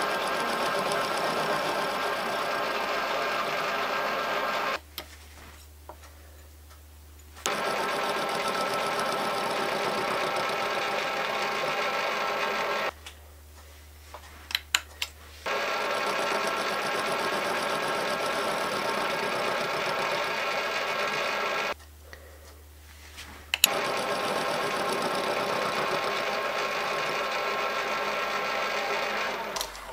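Milling machine running with an end mill cutting the flats of a small square-headed pin held in a 5C collet on a dividing head. The steady machining comes in four spells broken by three short pauses with a few light clicks, where the work is turned to the next flat.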